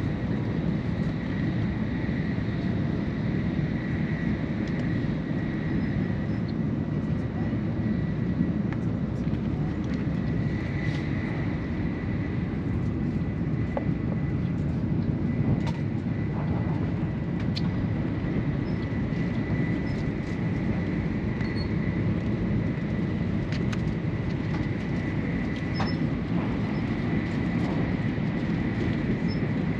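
Steady low rumble of a Shinkansen bullet train running at speed, heard inside the passenger car, with a faint steady high whine over it and a few light clicks.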